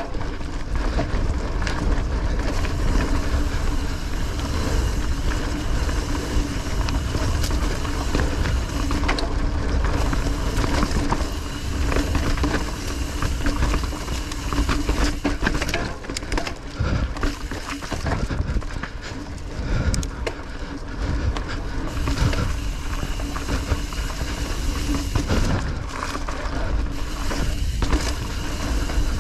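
Mountain bike ridden down a dirt singletrack: a constant rush of wind on the microphone and tyres on the ground, with frequent rattles and knocks as the bike goes over roots and bumps and a steady hum underneath.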